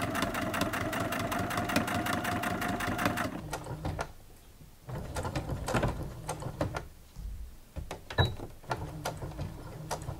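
Electric sewing machine stitching through layered cotton fabric at a fast, even rate with a steady motor whine. It stops about three and a half seconds in, then runs again more quietly in short spells with a few clicks.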